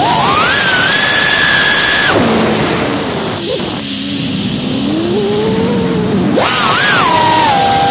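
FPV quadcopter's brushless motors whining over propeller noise, the pitch following the throttle. It climbs sharply at the start and holds high for about two seconds, drops low and slowly swells and falls, then climbs again near the end and settles part-way down.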